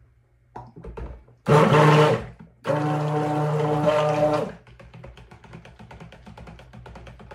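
Handheld stick blender running in two short pulses, a steady motor whine, mixing cold-process soap batter of oils and lye solution. The short pulses keep it from over-blending while the batter comes to emulsion. Faint rapid ticking follows.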